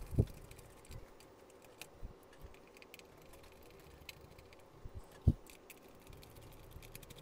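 Faint clicks and light knocks of a small Phillips screwdriver turning out the screws of an Oculus Quest 2 headset's plastic front plate while the headset is handled. Two short low knocks stand out, one just after the start and a louder one about five seconds in.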